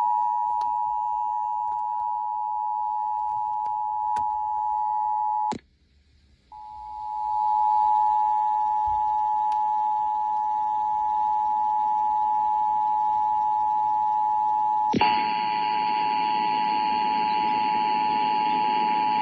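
Emergency Alert System attention signal: a steady two-tone alarm. It cuts off about five and a half seconds in, returns a second later, and about fifteen seconds in a steady hiss joins it.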